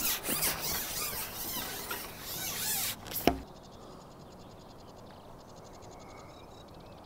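Repeated high-pitched rubbing squeaks, each bending up and down in pitch. They stop with a sharp click about three seconds in, and after that there is only faint outdoor background with light ticking.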